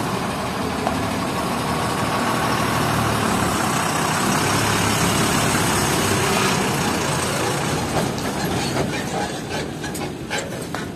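Truck engine running steadily at idle. Several sharp knocks or clinks come in the last three seconds.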